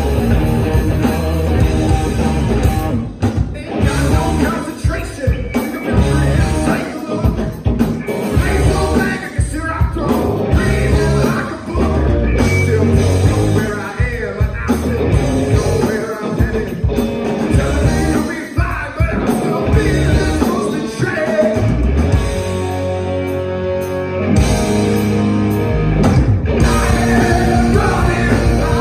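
Rock band playing live: distorted electric guitars, bass and drums with lead vocals, heard from the audience. About twenty-two seconds in the band thins to held notes for a couple of seconds before the full band comes back in.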